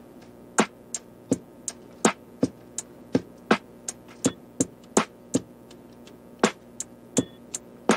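Background music with a steady beat of sharp percussive hits, about three a second, over faint sustained tones.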